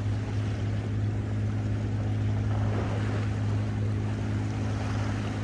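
Steady low boat-motor hum over water and wind noise on the open sea.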